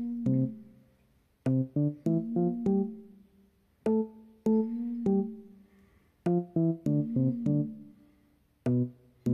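Background music: a light keyboard tune of separately struck, piano-like notes that fade after each strike, played in short phrases with brief pauses between.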